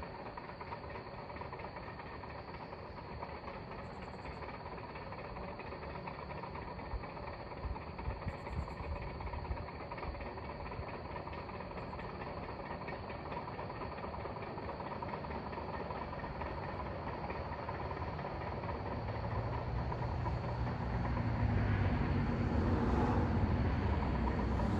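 Bulldozer's diesel engine running steadily, growing louder over the last few seconds.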